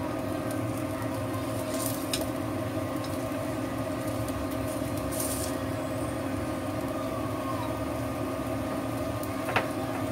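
Steady hum of an induction cooktop running, with ginger slices frying faintly in oil in a wok. Chopsticks click against the wok a few times, most sharply near the end.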